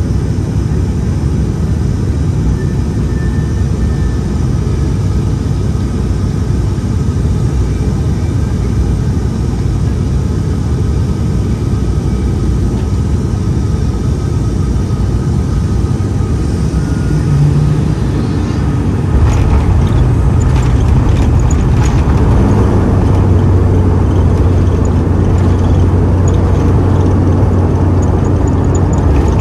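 ATR 42-600 turboprop cabin noise on final approach: a steady low drone from the engines and propellers. About two-thirds of the way through, the sound jumps up with a few seconds of rattling and jolts as the wheels touch down. A louder, steady low propeller drone follows on the landing roll.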